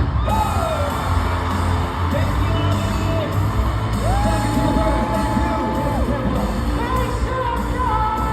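Pop song with a singer holding long notes over a heavy bass.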